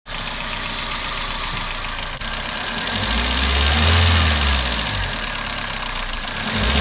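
Toyota Avensis 1.8 petrol engine running with a rapid ticking from the valve train under the valve cover, the sign of excessive exhaust valve clearances (0.60 and 0.40 mm). A low rumble swells about three seconds in and again near the end.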